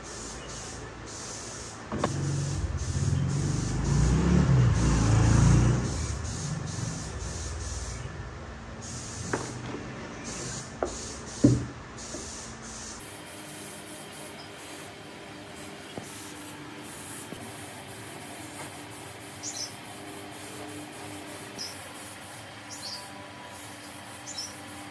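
Heavy wooden speaker cabinet scraping and rumbling as it is slid and lowered onto a wooden workbench. It is followed by a few sharp knocks as it is set down, the loudest just before the middle.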